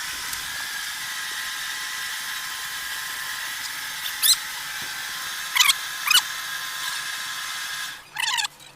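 Short, high chirps from a small animal, each sliding quickly downward: one about four seconds in, three more between five and six seconds, and a quick cluster near the end. Under them runs a steady hiss with a faint high whine.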